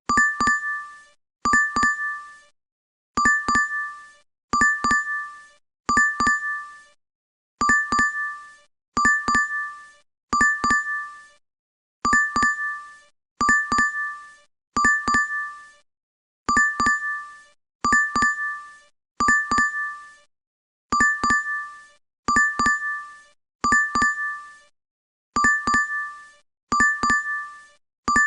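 DoorDash app's order notification chime, played over and over about every second and a half, each one a quick cluster of bright dings.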